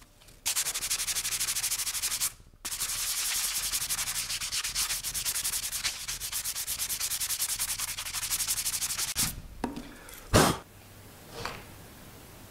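Sandpaper rubbed by hand in quick back-and-forth strokes over a hardwood cutting board, with a brief pause about two seconds in; the sanding stops after about nine seconds, followed by a sharp knock and a fainter one.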